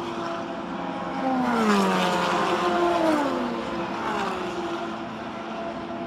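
Race car engines going by on the track, several overlapping engine notes each falling in pitch as the cars pass. The loudest is about two seconds in.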